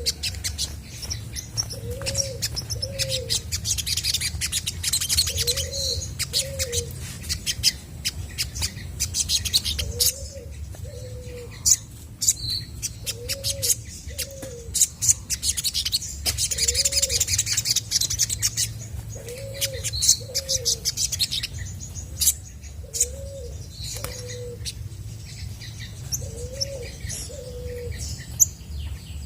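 Olive-backed sunbird singing: rapid high chirps, ticks and trills, in dense runs around a few seconds in and again about two-thirds through. Underneath, a low two-note coo repeats every three seconds or so.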